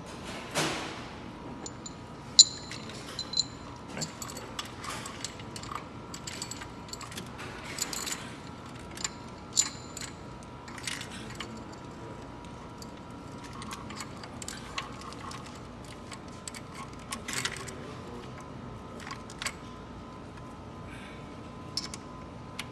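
Metal engine parts and tools being handled: scattered sharp metallic clinks and light rattles, the sound of a timing chain and cam sprockets being fitted on a Mini Cooper S cylinder head.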